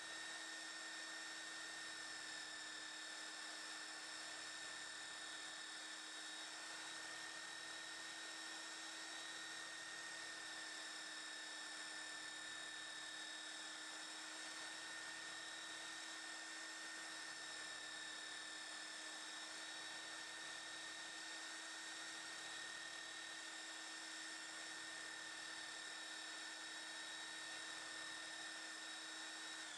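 Electric belt sander, mounted upside down as a bench grinder, running at a steady whine while a forged knife blade is held against its belt.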